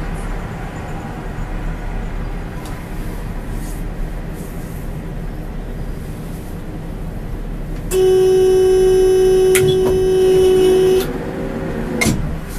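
Tram's warning buzzer, one loud steady tone held for about three seconds, over the low hum of the standing tram, with a single knock about a second after the tone stops.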